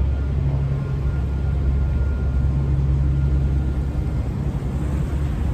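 Steady low engine drone of a sightseeing boat under way, with an even rushing hiss over it.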